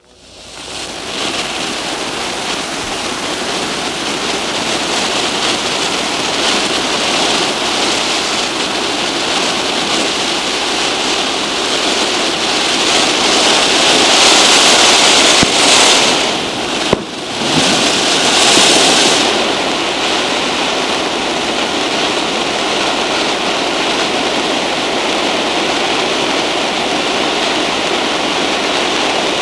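Two Electric Butterfly large ground fountains spraying sparks with a steady hiss, swelling up in the first second. The hiss grows louder from about 13 to 19 seconds in, with a brief dip near 17 seconds, then holds even.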